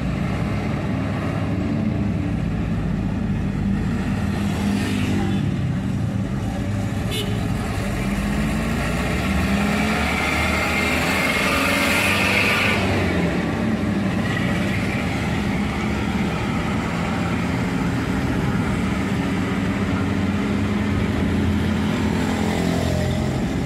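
Motor vehicle on the move: engine hum drifting up and down in pitch over a steady rush of road noise, swelling louder for a few seconds around the middle.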